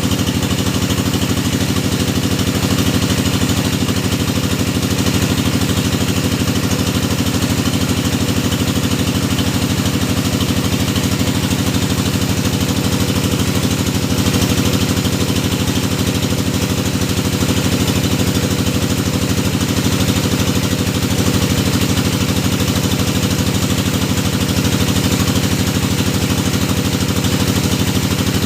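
Engine of a hydraulic deep-well drilling machine running steadily at a constant speed, with a low, even hum that does not change.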